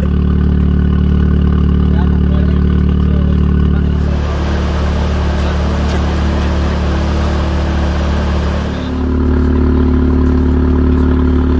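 Volkswagen Golf 7 R's turbocharged four-cylinder engine through an aftermarket iPE exhaust, running at a steady engine speed with a loud, deep drone. About four seconds in, a rushing noise joins it for around five seconds, then the plain steady drone returns.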